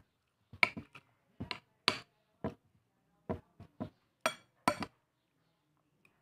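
Spoon clinking and scraping against a plate while eating: about a dozen short, sharp clinks at an irregular pace.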